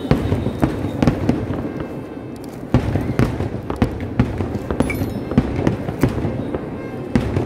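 Kerala temple-festival fireworks (vedikkettu) going off: a rapid, irregular string of sharp bangs over a constant low rumble, growing louder a little under three seconds in.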